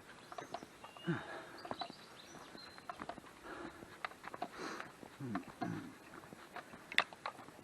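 Footsteps crackling through dry leaves and twigs on a woodland path, with a couple of short low vocal sounds and faint bird chirps; one sharper snap about seven seconds in.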